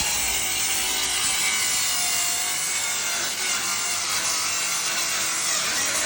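Makita 7-inch angle grinder running continuously under load, a steady high grinding hiss with the motor's whine wavering slightly in pitch as it bites.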